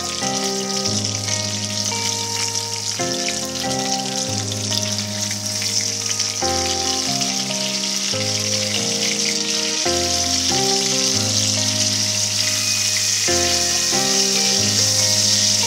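Fish fillets and lemon slices sizzling steadily as they fry in hot oil in a pan. Background music with long held notes plays over the sizzle.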